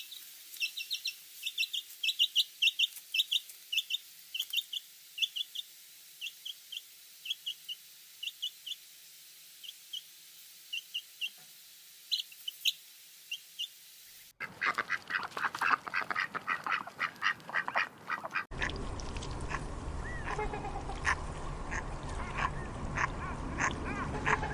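Baby chicks peeping: short, high, repeated calls, several a second, for most of the first half. After a sudden change comes a denser chorus of farm-bird calls. A second change brings farm-bird calls over a steady low background noise.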